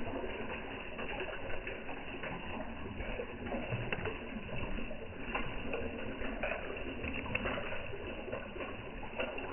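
Koi feeding at the surface, a dense patter of small slurps, pops and splashes as they suck in floating pellets.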